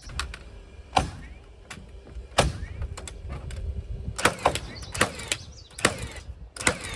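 Irregular knocks and bangs of wooden framing lumber being handled and struck, about a dozen sharp hits at uneven spacing over a low steady rumble.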